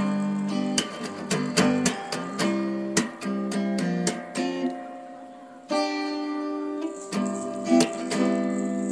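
Background music: acoustic guitar picking a melody over plucked chords, with one chord left ringing about two-thirds of the way through.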